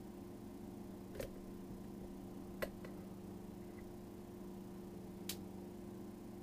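Quiet room with a steady low electrical hum, broken by three faint, sharp clicks of small handling noise: about a second in, midway, and near the end.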